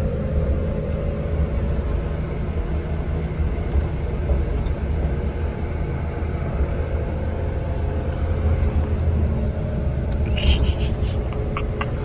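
Steady low rumble of a coach bus heard from inside the passenger cabin, with a few light clicks about ten and a half seconds in.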